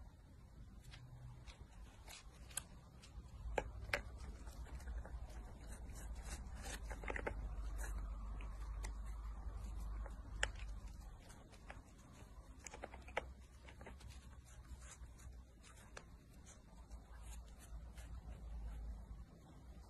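Faint handling noise of a kitten being held in someone's hands: soft rustling with scattered small clicks, and a low rumble for several seconds in the middle.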